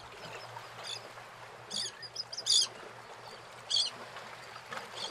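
Small birds chirping: about five short high chirps at uneven intervals, over a steady hiss.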